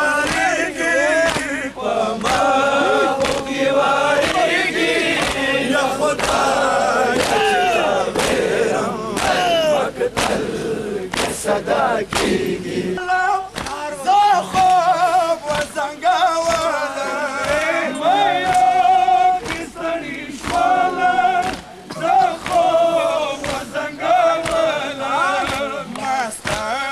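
Large crowd of men chanting a Pashto mourning lament together, with the sharp, repeated slaps of matam chest-beating throughout. In the second half one melodic voice line stands out above the crowd.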